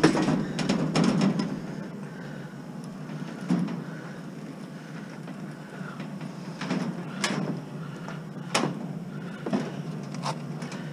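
Knocks and clanks of scrap metal being handled: a quick cluster of strikes in the first second and a half, then single knocks every second or so.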